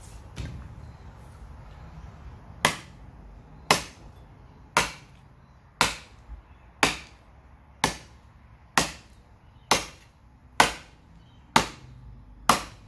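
Kukri blade chopping into a hard, dead stick of wood: eleven sharp chops, about one a second, starting a little under three seconds in.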